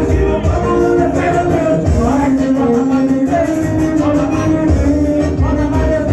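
Music with a singing voice over a heavy, pulsing bass beat, played loud through a paredão, a wall of car-mounted speakers.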